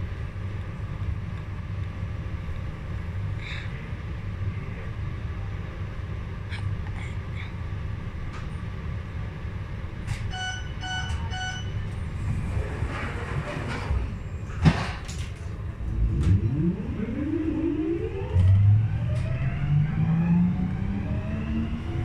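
Metro train at the platform: a steady low rumble, then a short run of pulsed electronic beeps about ten seconds in, typical of the door-closing warning. After a hiss and a single clunk, the traction motors start up and their whine rises steadily in pitch as the train pulls away.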